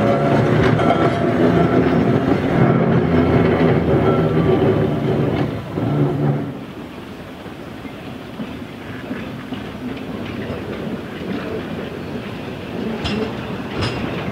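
A double-deck tramcar running past with a steady hum and wheel rumble. About six seconds in it gives way to a quieter rumble of a narrow-gauge steam train approaching slowly, with a few sharp clicks near the end.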